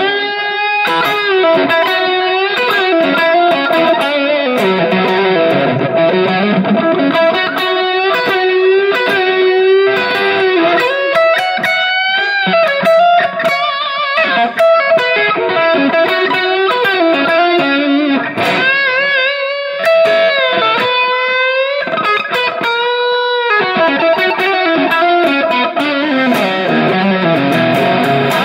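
Electric guitar played through a Valeton GP200 multi-effects processor into a Cort CM15R practice amp. It plays a melodic lead line of sustained notes, with several string bends about two-thirds of the way through.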